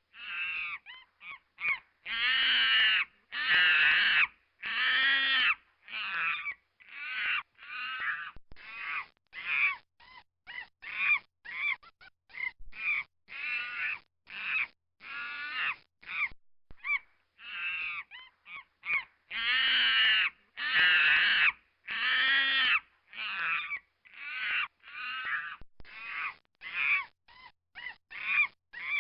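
Monkey screeching: a long run of harsh, pitched calls, mostly short and quick, broken by several longer drawn-out screeches.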